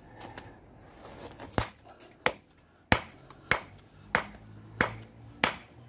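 Small steel ball-peen hammer striking a quartzite boulder in a steady series of about seven sharp clacks, roughly one every two-thirds of a second, chipping shards off the rock.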